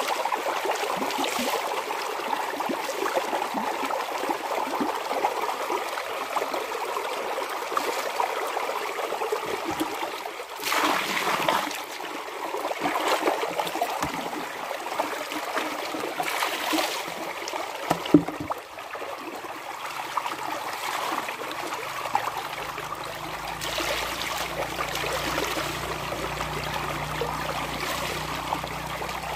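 Clothes being washed by hand: wet fabric squeezed and wrung, with water trickling and splashing into a plastic bucket. Louder splashes come partway through, along with a single sharp knock.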